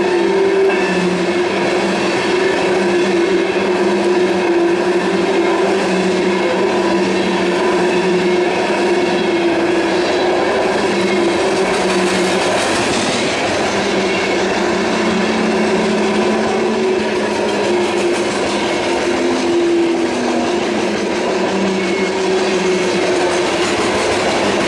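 Loaded coal hopper cars of a freight train rolling past, their steel wheels on the rails making a steady, continuous rumble with faint ringing tones running through it.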